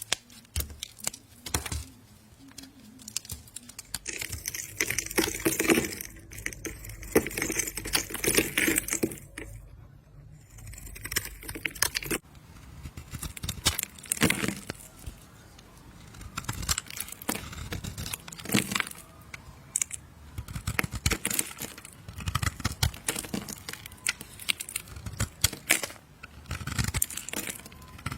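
A knife cutting and scraping through a bar of soap, with dense irregular crisp crackles as the soap crumbles under the blade, and a brief lull partway through.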